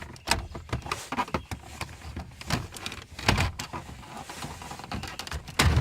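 Irregular plastic clicks, knocks and scraping as a screwdriver pries the master window switch panel up out of a Crown Victoria's driver door, working its clips loose. The loudest knocks come about three seconds in and again near the end.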